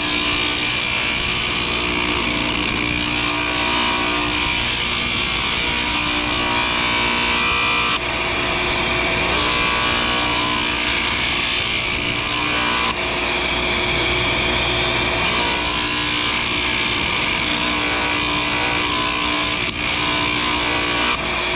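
High-speed sander motor running with a rock ground against its 60-grit abrasive: a steady whine under a gritty hiss. The hiss drops away twice for a second or two, and the sound cuts off suddenly at the end.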